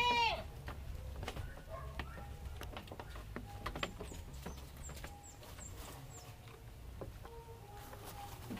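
A young goat bleats once, loud and brief, right at the start, then only soft clicks and rustling from handling, with a few faint high bird chirps about four to six seconds in.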